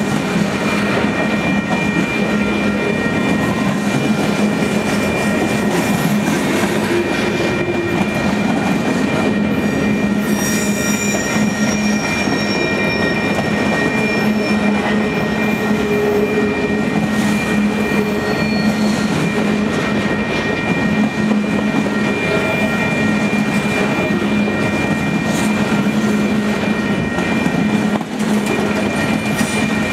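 Freight train boxcars rolling past close by: a steady rumble and clatter of steel wheels on the rails, with thin, high wheel squeals about ten seconds in.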